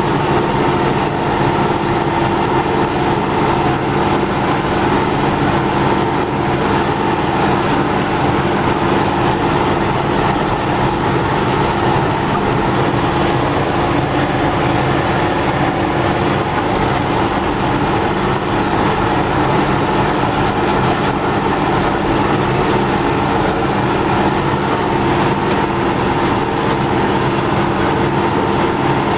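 MTZ tractor's diesel engine and drivetrain running at a steady speed, a constant drone with several fixed tones. The freshly repaired rear axle runs without a hum.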